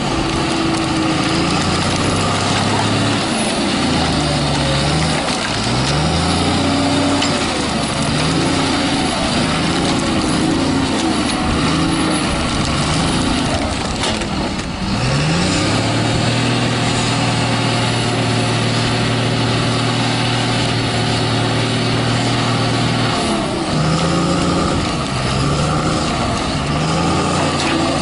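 John Deere 848H skidder's diesel engine under load, its pitch rising and falling again and again as the throttle is worked. Past the middle it is held at steady high revs for several seconds, then goes back to rising and falling.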